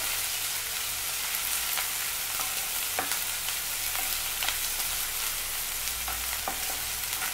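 Chopped onions sizzling in hot oil in a nonstick frying pan, being sautéed toward brown. A wooden spatula stirs them, scraping and tapping the pan now and then.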